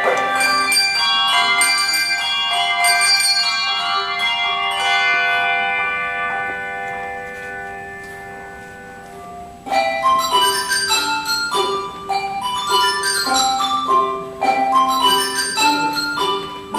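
English handbell ensemble playing: ringing chords that slowly die away over about ten seconds, then a sudden brisk passage of short, quick bell notes.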